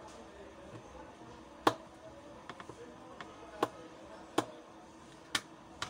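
A long screwdriver turning a screw deep inside a plastic Bluetooth speaker's housing, giving four sharp, separate clicks a second or two apart.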